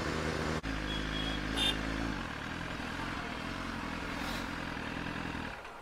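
BMW S1000RR's inline-four engine running steadily at idle, with a short high tone about a second and a half in. The engine sound stops near the end.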